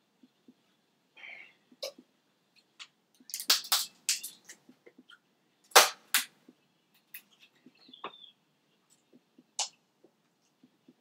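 King crab leg shell being cracked and snapped apart by hand: a run of sharp cracks about three and a half seconds in, the loudest pair about six seconds in, and a last single crack near the end, with soft shell rustling between.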